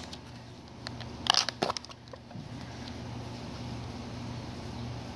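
Plastic deli cup being handled and its lid pried off: a few sharp plastic clicks and crackles about a second in. After that a steady low hum.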